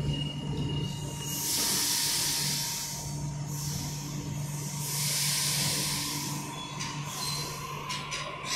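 Sydney Trains double-deck electric train standing at the platform, its equipment giving a steady low hum, with two long bursts of air hiss from its pneumatic system, each about a second and a half.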